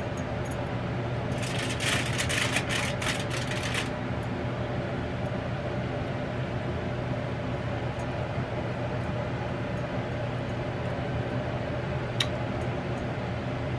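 Steady hum of a fan or kitchen appliance. About two seconds in comes a short run of quick scraping strokes, as a silicone spatula scrapes barbecue sauce off a rack of ribs. A single click comes near the end.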